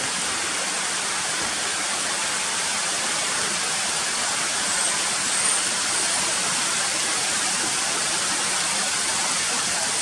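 Steady, even hiss of rainfall.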